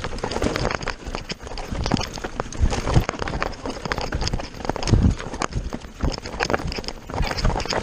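Mountain bike descending a rough dirt trail at speed: tyres rolling and skidding on dirt and stones, and the bike rattling with a continuous run of irregular knocks, the heaviest thuds about three and five seconds in.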